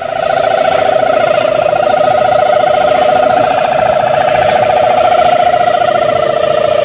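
Sendaren, the bow-strung hummer on a flying traditional kite, droning in the wind: one loud, steady humming tone with a fast flutter in it, dipping slightly in pitch near the end.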